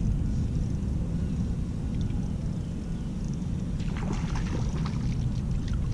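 Kayak on calm water: a steady low rumble on the camera's microphone, with a few faint clicks and taps about four seconds in.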